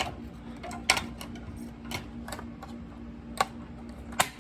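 Sharp, scattered plastic clicks and taps from handling an STI Global ReSet fire alarm call point, about six in all, over a steady low hum.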